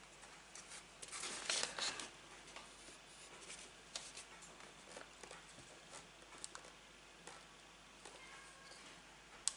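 Faint rustling of plastic packaging and small clicks as an adhesive tape runner is unwrapped and handled, the rustling strongest about one to two seconds in, with a single sharp click near the end.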